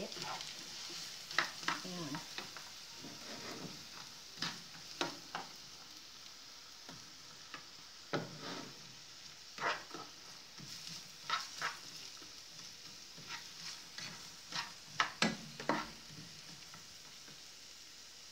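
Diced onion sizzling in hot oil in a nonstick frying pan, with a steady high hiss. A spatula stirs it now and then, scraping and knocking against the pan in short, irregular strokes.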